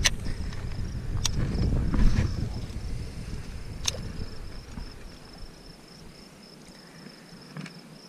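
Wind buffeting the microphone in low gusts that die down about five seconds in. Under it runs a steady, pulsing high insect trill. A few sharp clicks are heard, one right at the start and others a little after one and four seconds in.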